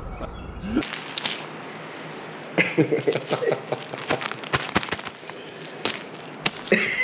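Clear plastic bag crinkling as it is handled right up against the microphone: a dense run of sharp crackles, thickest in the middle.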